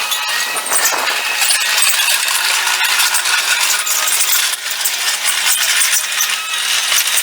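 Mustang MTL25 compact track loader at work, its engine and running gear sped up into a dense, high-pitched metallic clatter of fast clicks.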